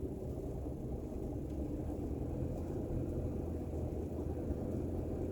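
Steady low rumble of a car on the move, heard from inside the cabin: engine and road noise at an even speed.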